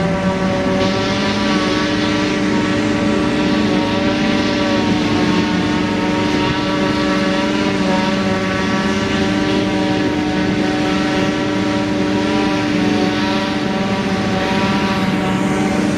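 Diesel engine of farm harvesting machinery running steadily under load, with a steady whine that sets in early and drops out near the end.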